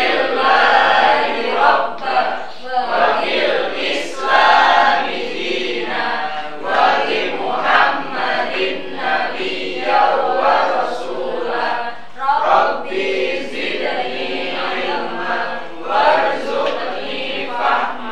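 A class of students reciting a prayer aloud together in a sing-song unison chant. It is the doa said before a lesson begins.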